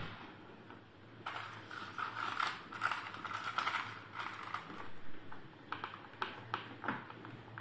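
Wire grille door of a plastic pet carrier rattling and clicking against its latches as hands work it open. A dense clatter of small clicks starts about a second in, then a few separate clicks follow.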